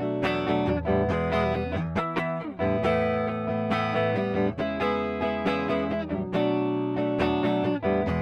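PRS SE Custom 22 electric guitar played on its neck pickup, with chords strummed and picked in quick succession and left to ring.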